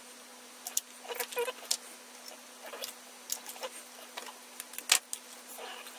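Small workbench handling noises: scattered clicks and brief scratchy squeaks of cable and sleeving being worked by hand, with one sharp click about five seconds in, over a steady faint hum.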